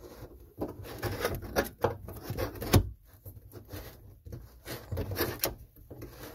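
Close handling noise of a metal sink drain fitting being held and turned by hand: irregular rubbing, rustling and small knocks, the sharpest click a little under three seconds in. The drain's nut will not stay up on the threads.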